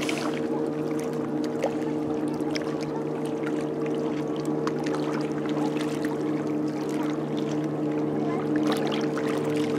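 A steady engine drone that holds one even pitch, with faint scattered clicks over it.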